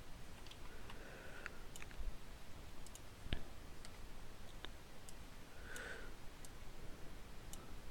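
Computer mouse buttons and keyboard keys clicking: about a dozen short, sharp clicks at irregular intervals, faint.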